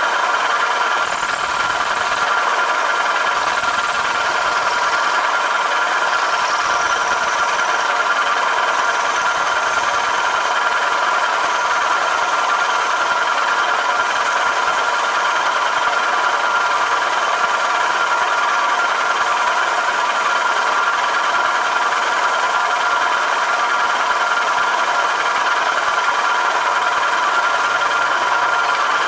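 Machine spindle running steadily as a drill bores out a snapped-off, rusted exhaust stud from an aluminum cylinder head: an even, unbroken machining drone with a steady whine.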